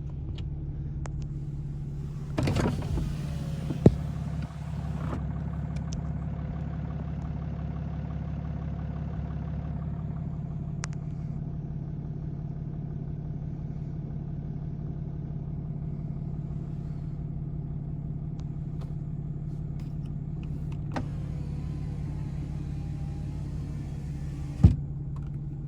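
Truck engine running steadily at a low, even idle, with a brief louder noise about two and a half seconds in and a couple of sharp clicks.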